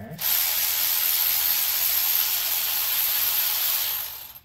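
A steady, loud hiss of a pressurised spray being let out, starting suddenly and cutting off after about four seconds.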